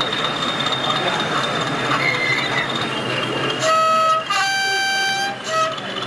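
Two-tone horn from a model locomotive's sound unit: a short lower toot, a longer higher note, then another short lower toot.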